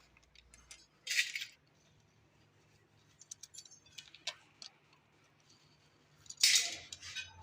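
Light metallic clinks and taps, with two louder short clattering bursts, one about a second in and one near the end, over a faint steady low hum.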